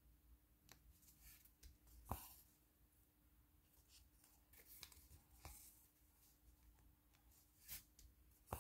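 Near silence with a handful of faint ticks and rustles from a needle and thread being worked through a stiff cross-stitch canvas, the clearest about two seconds in, over a faint steady hum.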